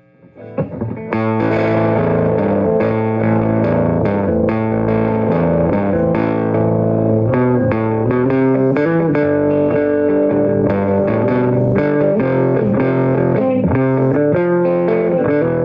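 Electric guitar played through a hand-built single-ended 6L6 tube amp with its negative feedback switched off. A few quiet notes, then continuous chords and single notes from about a second in.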